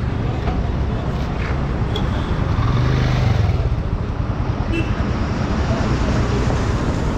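Motorcycle engines running at a roadside stop, with highway traffic noise. One engine grows louder for about a second, about three seconds in.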